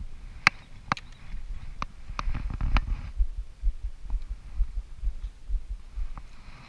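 Handling noise on a body-worn camera: a few sharp clicks in the first three seconds, then irregular low thumps.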